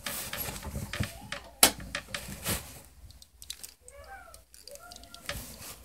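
Phone handling noise: scattered clicks and knocks, with a faint voice briefly about four seconds in.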